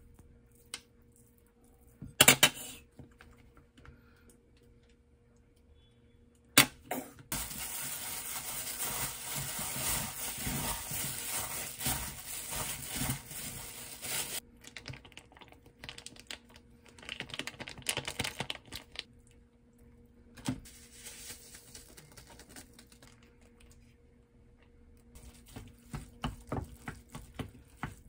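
A disposable plastic glove crinkling as a hand squeezes and mixes shredded crab sticks in a glass bowl, a dense rustle lasting several seconds after a couple of sharp knocks. Near the end, a spoon taps and scrapes quickly against rice in a pot, about three or four ticks a second.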